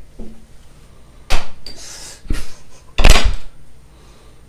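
Handling noise: a few short knocks and rustles, the loudest about three seconds in.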